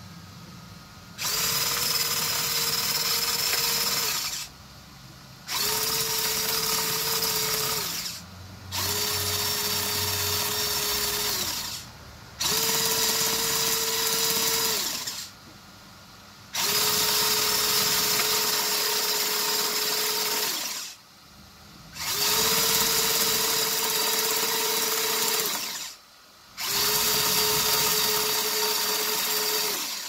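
Geared electric motors of a metal-tracked model excavator running in seven bursts of about two to four seconds each, with short pauses between, as they are switched on and off from a wireless remote. Each burst is a steady motor whine.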